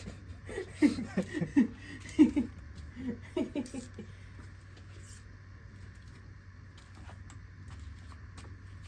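A person's voice for about the first four seconds, unclear and not transcribed, then a few faint clicks over a steady low hum.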